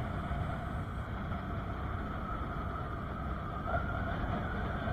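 Motorcycle riding along a paved road: a steady rush of engine and wind noise, with no clear changes in speed.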